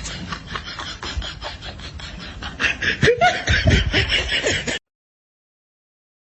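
A person snickering and laughing over a busy rustling noise, louder in the second half, then cutting off abruptly to silence.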